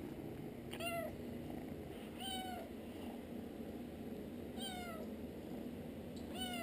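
Kitten meowing: four short, high meows spaced about one and a half to two seconds apart, each one sliding slightly down in pitch.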